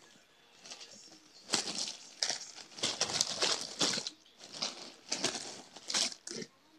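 Plastic bag crinkling and rustling in a string of loud bursts as a cat plays in it, starting about a second and a half in and stopping shortly before the end.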